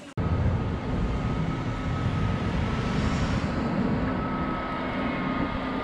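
Steady machine noise, heavy in the low end with a faint steady whine above it, starting abruptly just after the beginning.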